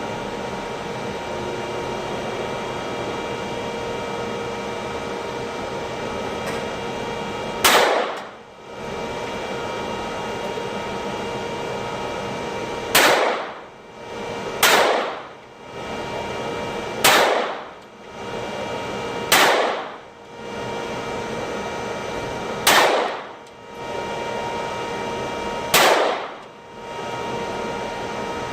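Seven gunshots fired one at a time: a single shot about eight seconds in, then six more every two to three seconds. They sound over a steady mechanical hum.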